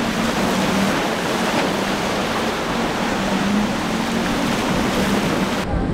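A center-console boat's four outboard motors run at speed: a steady low engine drone under a loud hiss of spray and surf as the hull cuts through breaking inlet waves. The hiss drops away abruptly near the end.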